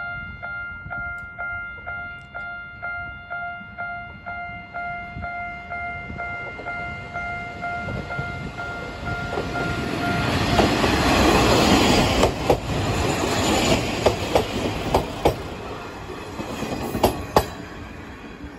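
Level-crossing warning bell striking about twice a second, stopping about halfway through. A Kominato Railway KiHa 200 diesel railcar approaches, its engine and wheels growing louder, then its wheels clack over the rail joints in quick runs as it passes close by.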